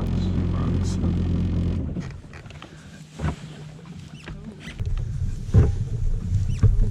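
Yamaha WaveRunner engine idling with a steady low hum that drops away about two seconds in, followed by irregular low rumbling and a few knocks.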